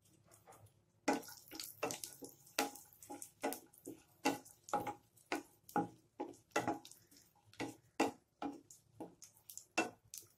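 Wooden spatula stirring cashews and raisins frying in ghee, scraping and knocking against the pan in short strokes at about three a second, starting about a second in.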